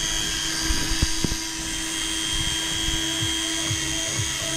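Electric deep-drop fishing reel's motor whining steadily as it winches a heavy fish up slowly from deep water, with a few light knocks about a second in.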